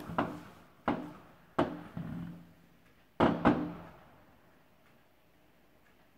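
Aerial fireworks shells bursting: about six sharp bangs over the first three and a half seconds, each trailing off in an echo, the last two close together.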